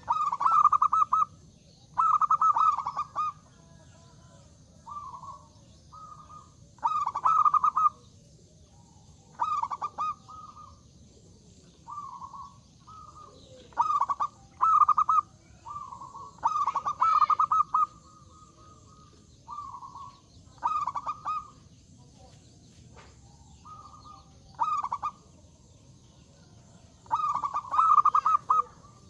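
Zebra dove (perkutut) cooing: a string of short, rippling coo phrases, each about a second long, repeated every couple of seconds with some softer phrases in between.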